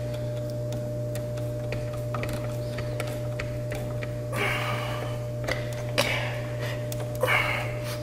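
Steady low electrical hum with scattered light clicks and two short rustles, as wires are handled and worked into the wall connector's terminals.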